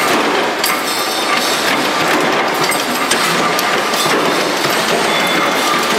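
Mechanical punch presses running in a metal-stamping shop: a dense, loud din with sharp metallic strikes at irregular intervals as the presses stamp parts.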